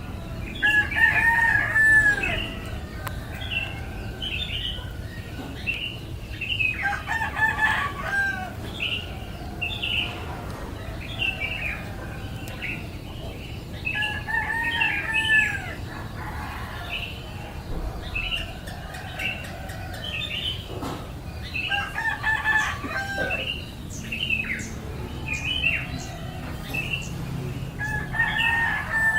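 Rooster crowing over and over, about five crows each some six or seven seconds apart, while small birds chirp throughout.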